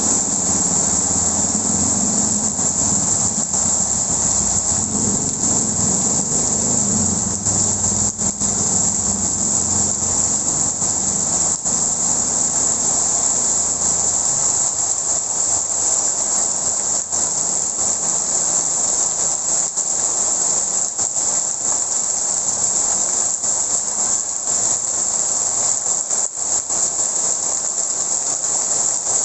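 Heavy rain pouring steadily as a loud, even hiss, with a low rumble underneath in the first half that fades out about halfway through.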